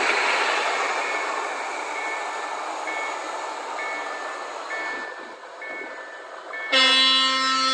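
Passenger train carriages running past on the rails, their rumble fading as they recede, with faint short high beeps repeating about once a second. Near the end a loud electric train horn sounds for about a second and is cut off sharply.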